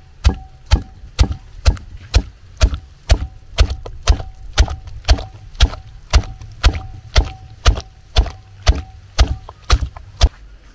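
Steady chopping strokes, about two a second, each a sharp knock with a short ring after it, stopping just before the end.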